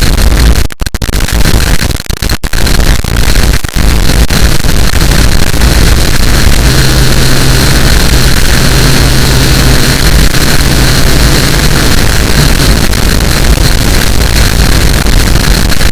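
Extremely loud, heavily distorted harsh noise: a dense wall of sound filling every pitch from deep rumble to hiss, with a few brief dropouts in the first four seconds.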